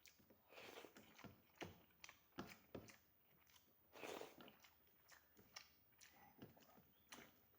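A person chewing a mouthful of rice and fried vegetables, quiet wet smacking and clicking mouth sounds at an irregular pace, with a couple of longer moist spells.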